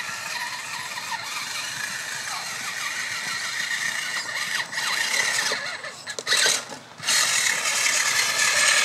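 Electric RC rock crawler's motor and gear drive whining as it drives over a dirt path, the pitch wavering with the throttle. It gets louder about seven seconds in as the truck comes right up close.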